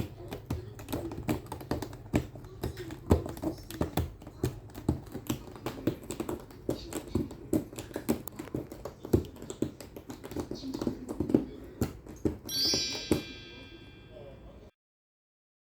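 Rapid, irregular scratching and clicking of claws raking a corrugated cardboard cat scratcher. A short bright chime-like tone sounds near the end, then the sound cuts off.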